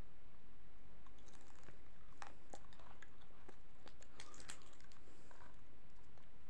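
Close-up chewing of lahmacun, with many small wet mouth clicks and crackles that are thickest through the middle.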